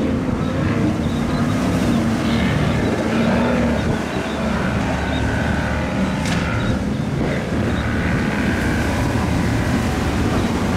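Outboard motor of a rigid-hull inflatable boat running steadily at speed through choppy water, mixed with sea noise and wind on the microphone.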